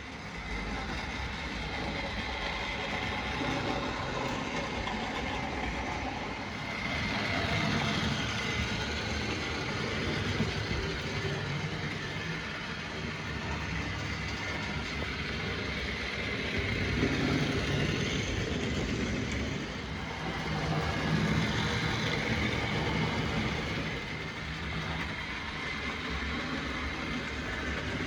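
Model railway locomotive running on track: the electric motor whirring and gears and wheels rattling over the rails, swelling and fading in level every few seconds.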